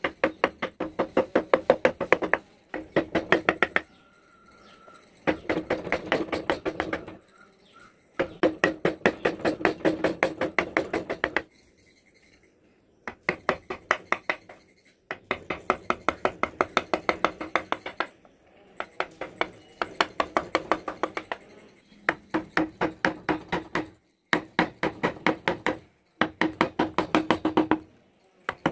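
Quick, light taps of a wooden mallet on a wood-carving chisel cutting into a wooden panel: runs of about eight taps a second lasting two to three seconds, with short pauses between.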